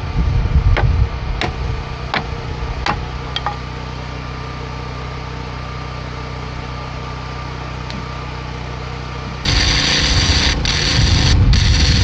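Generator engine running steadily, with a few sharp ticks in the first few seconds. About nine and a half seconds in, a stick-welding arc strikes and crackles loudly, breaking off briefly a couple of times.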